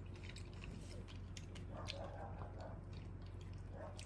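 A person chewing a mouthful of American Beauty dragon fruit flesh: faint, scattered wet clicks and small crunches.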